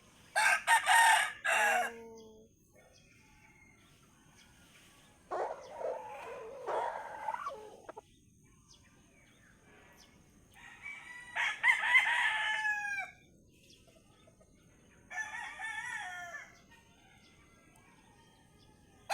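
Roosters crowing in turn, four crows in all. A loud one comes near the start, a fainter and lower one about five seconds in, then two more at about eleven and fifteen seconds, each ending in a falling tail.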